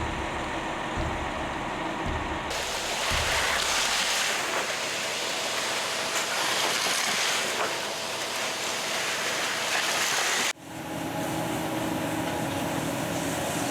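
Construction machinery engine running, with a stretch of loud, even rushing noise through the middle. The sound cuts off abruptly near the end and is replaced by a steadier engine hum.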